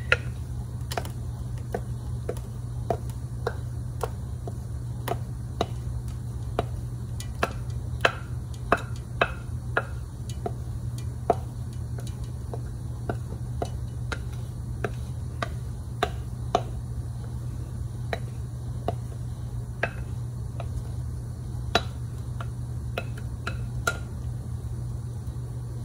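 Spatula scraping and tapping against a glass bowl as thick blended sauce is scraped out into a metal pan: a string of light clicks and taps at irregular intervals, busiest from about seven to eleven seconds in. A steady low hum runs underneath.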